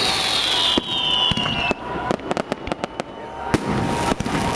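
Fireworks going off: a whistle that falls in pitch for nearly two seconds, then a quick run of sharp crackling pops, with scattered bangs after it.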